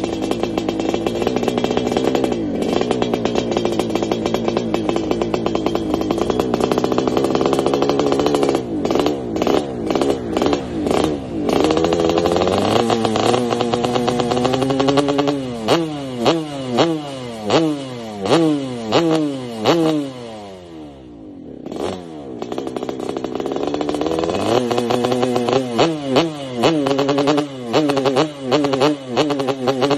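Yamaha RX-King 135 single-cylinder two-stroke engine revved hard with the bike standing still: held high at first, then blipped repeatedly, the pitch rising and falling and the engine rapped up against its rev limiter. A little past the middle it falls briefly to a quiet idle, then revs up again in quick blips.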